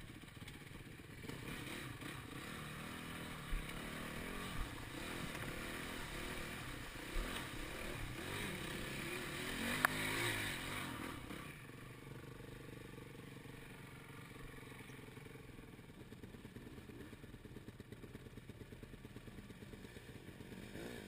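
Dirt bike engine revving up and down, growing louder to a peak about ten seconds in, with a few sharp knocks along the way. The engine then falls back to a fainter, steady running sound.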